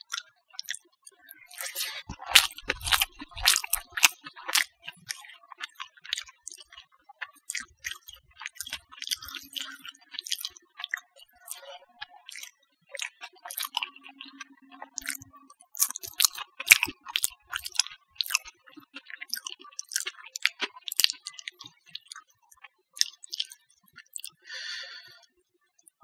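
Close-up eating sounds of rice, omelet and mashed potato being eaten by hand: many quick, irregular wet clicks and crunches of chewing and mouth noises. They come in busier spells, with a brief hiss near the end.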